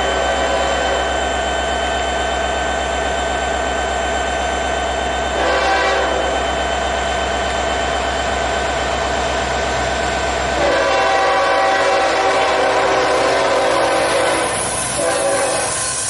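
Norfolk Southern freight locomotive's horn sounding as the train approaches a grade crossing, including a short blast about five seconds in, a long blast from about eleven to fourteen seconds, and a short one near the end. Crossing signal bells ring steadily underneath.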